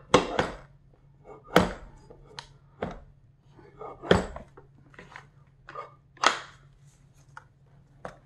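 A dozen or so sharp clicks and knocks, irregularly spaced, from steel and wooden parts of a Stoeger Condor 12-gauge over-and-under shotgun being handled and fitted together: the barrels being joined to the action and snapped into place.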